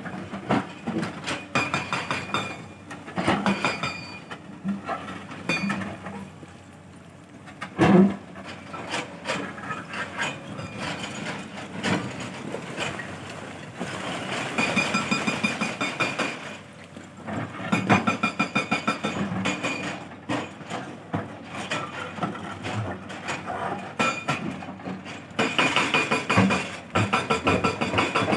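Tata 210 tracked excavator working, with rapid runs of mechanical knocking and clanking and a high steady whine at times. One sharp, louder knock comes about eight seconds in.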